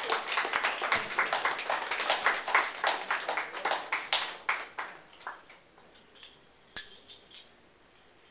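Small audience applauding, dying away about five seconds in, with a single sharp click near the end.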